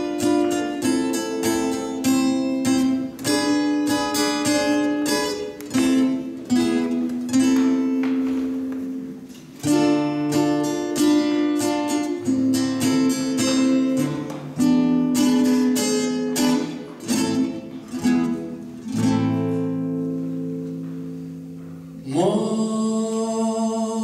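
Solo acoustic guitar playing a fingerpicked introduction of single notes and chords. Near the end a man's voice comes in singing over the guitar.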